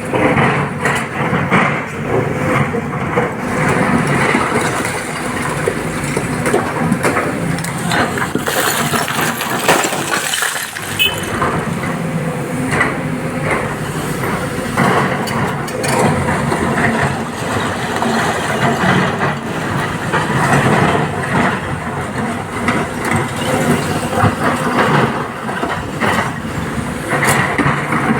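SANY excavator's diesel engine working under load, with irregular clatters and knocks of stone being loaded into a tipper truck's steel bed.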